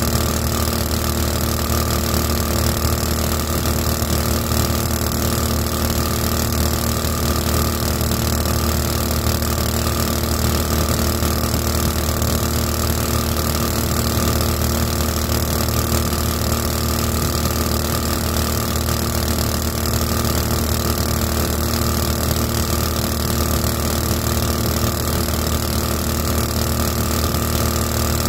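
A 224cc small engine pushing a flat-bottom jon boat, running steadily with no change in pitch.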